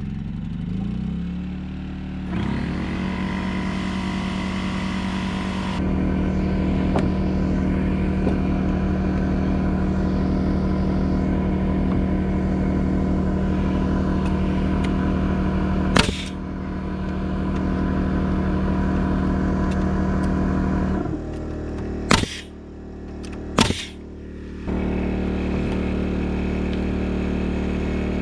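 A small gasoline engine on a portable generator starts up, its note rising, then runs steadily, working harder a few seconds in and dropping off and picking back up near the end. Three sharp shots from a pneumatic framing nailer driving nails into 2x4 framing cut through it.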